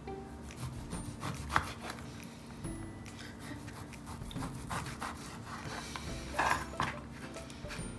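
Kitchen knife slicing through raw pork onto a plastic cutting board: repeated short cutting and scraping strokes, with a sharp knock about a second and a half in and louder strokes near the end.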